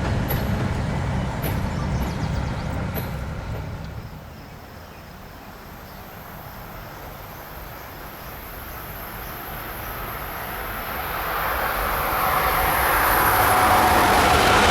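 A train rumbles for the first few seconds and cuts off. After a quieter stretch, the rushing noise of an approaching Amtrak Acela Express high-speed electric train builds steadily and is loudest at the end.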